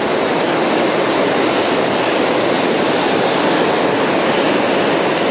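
Fast, heavy river current rushing over rocks and a riffle: a steady, even rush of water.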